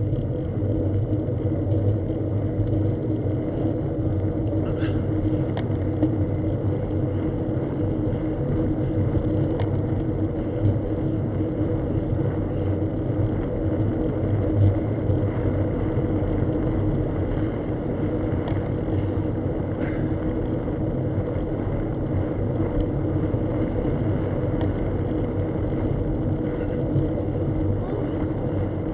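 Steady motor hum and road rumble of a vehicle travelling at an even speed along a paved road, its pitch holding level throughout.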